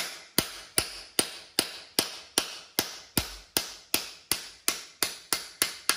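Hammer tapping a socket used as a drift to drive a new core plug into a Land Rover Series engine block. Light, even blows come about two to three a second, each with a short metallic ring.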